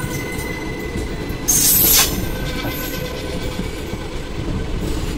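Passenger coaches of an Indian Railways express train rolling past on the adjacent track: a steady rumble of wheels on rail, broken about a second and a half in by a loud, high-pitched screech of half a second, typical of wheel squeal.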